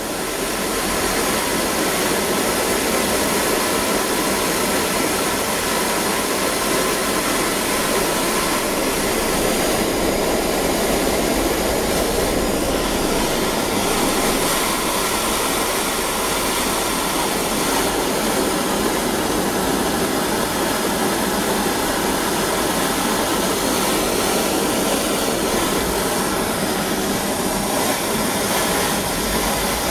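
Gas blowlamp flame burning steadily against a wet copper pipe joint, a steady rushing hiss. The heat is being put where the water seeps in, to steam it out so the joint will take solder.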